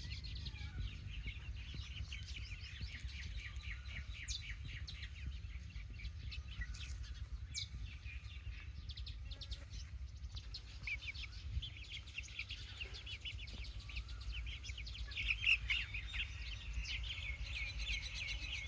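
A group of chicks peeping: many short, high chirps overlapping in quick succession, growing busier and louder in the second half. A steady low rumble sits underneath.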